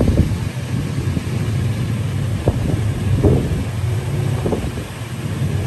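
Strong snowstorm wind buffeting the microphone: a loud, steady low rumble that swells in gusts a few times.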